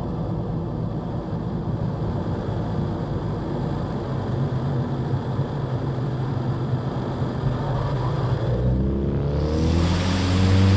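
Turbocharged 2.0 EcoBoost four-cylinder of a 2017 Ford Escape running steadily, then about eight and a half seconds in its pitch rises as it is revved up, and a loud rush of air from the open airbox and turbo joins near the end.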